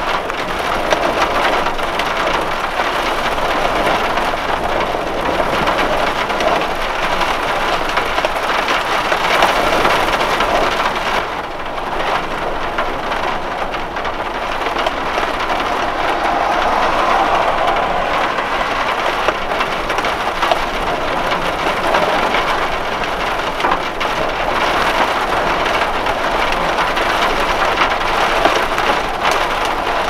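Heavy storm rain falling in a dense, steady rush, easing slightly about twelve seconds in.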